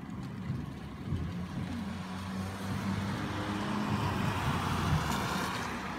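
A car driving along a wet road: a low engine hum under a rising tyre hiss on the wet surface, loudest about five seconds in as it passes.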